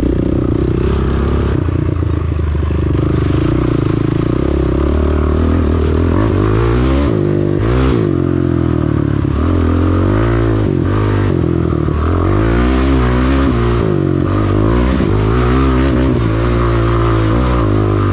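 Honda ATV engine running under way, its pitch rising and falling again and again as the throttle is opened and closed.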